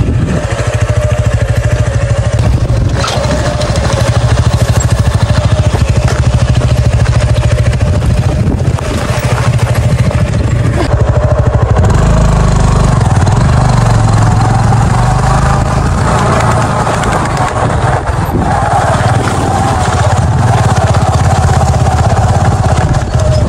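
Motorcycle engine running steadily as the bike is ridden slowly over a rough dirt track. The engine note shifts about halfway through.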